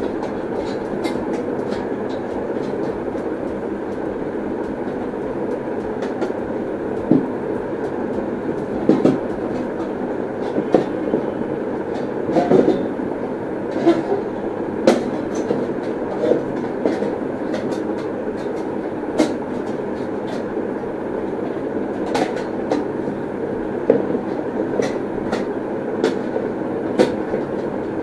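Metal plates of a folding titanium wood-burning camping stove clicking and clinking irregularly, every second or two, as their hinges are slotted together, over a steady rumbling background noise.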